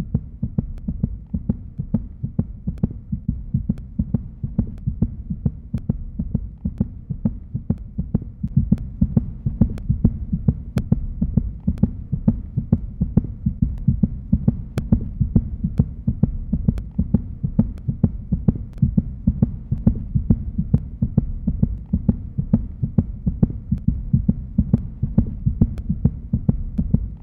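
Electronic film soundtrack: a low, throbbing hum cut by fast, even clicks, about three a second.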